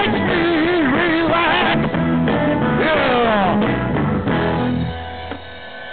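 Rock band recording with guitar, its level dropping over the last second or so as the track ends.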